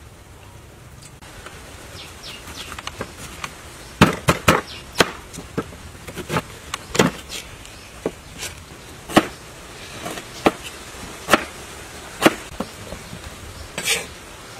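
Knife chopping a soft food on a wooden cutting board: sharp knocks of the blade hitting the board. They begin about four seconds in, several close together at first, then about one a second.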